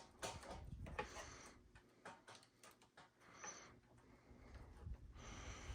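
Faint, scattered light clicks and taps with soft rustling: hands handling speaker wires and terminals while hooking speakers up to the amplifier.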